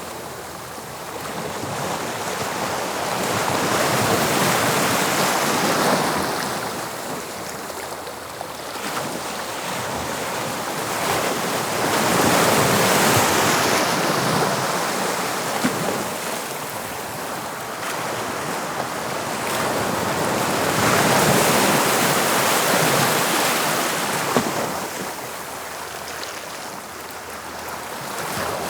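Sea waves breaking and washing on the shore, the surf swelling and fading about every eight to nine seconds, with some wind.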